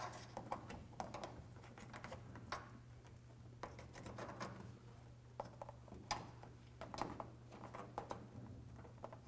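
Faint, irregular crinkles and clicks of foil-faced sound-deadening mat being pressed and smoothed into place by hand and with a plastic tool, over a steady low hum.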